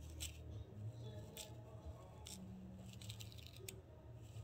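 Plastic fine-tooth comb scratching a scalp through short coiled hair, loosening dandruff flakes: several short, faint, irregular scratches, with a quick run of them about three seconds in.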